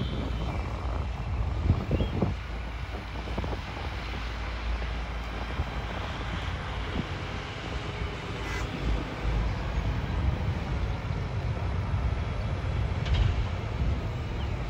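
John Deere motor grader's diesel engine running steadily as the machine works the dirt, a low rumble, with a few short knocks.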